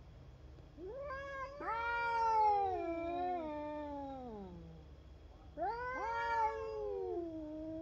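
Cat caterwauling: two long, drawn-out yowls, each rising quickly and then sliding slowly down in pitch, the first starting about a second in and the second near six seconds. These are the threat yowls of cats provoking each other.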